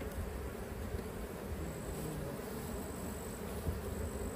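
A honeybee colony buzzing in a steady hum, its bees stirred up as their nuc box is tipped open over the hive.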